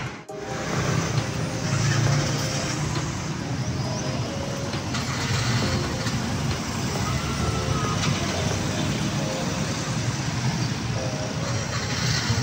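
Street traffic: cars and motorcycles running along a busy road, a steady rush of engine and tyre noise.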